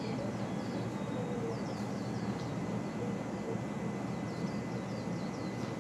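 Outdoor background ambience: a steady low rumble with short runs of high, quickly falling chirps from small birds, a few times.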